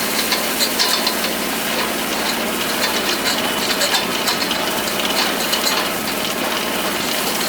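Kubota tractor's diesel engine humming steadily while the Rhino hay tedder's spinning tine rotors and gearing rattle and tick as it spreads hay.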